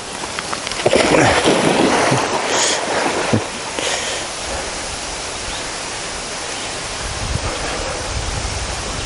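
A dog splashing into a pond and swimming out after a thrown stick: a burst of splashing about a second in that lasts two to three seconds, then a steady hiss with wind buffeting the microphone near the end.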